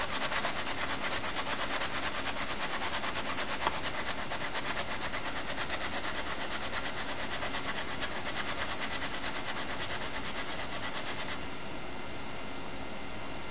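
Hand sanding with a small square of 60-grit sandpaper along the trimmed edge of ABS plastic armour, a fast, steady back-and-forth rasp that evens the cut edge down to the tape line. It stops about eleven seconds in, leaving a faint steady hiss.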